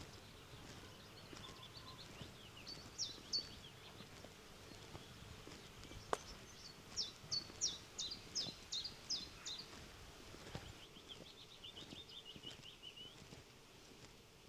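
Songbirds singing over a quiet rural background: bursts of quick, high, downward-sweeping notes, the loudest phrase a run of about eight notes midway, with a softer trill near the end. A single sharp click about six seconds in.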